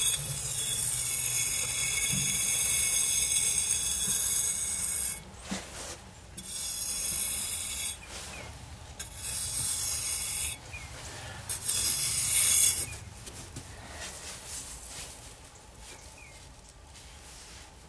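Trowel tip scraping lines into a sandy excavation wall to mark soil boundaries: a hissing scrape in four long strokes with short breaks, the first about five seconds long, then quieter scratching.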